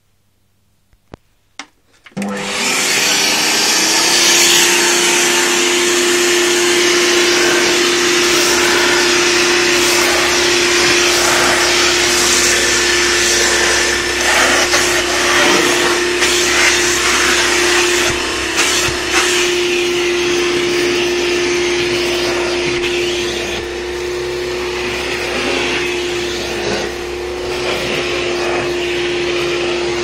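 Hoover Turbopower 2 vacuum cleaner switched on about two seconds in, after a couple of clicks: the motor spins up with a short rising whine, then runs steadily with a loud rushing suction through the hose and hand nozzle.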